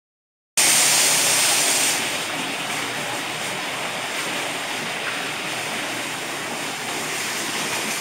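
Small artificial waterfall splashing down a rock wall: a steady rush of falling water, a little louder for the first second and a half.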